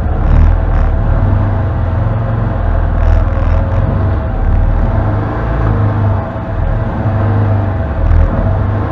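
Can-Am Defender HD10 side-by-side's V-twin engine running as it drives, a steady low rumble with a steady whine above it, heard from inside the cab.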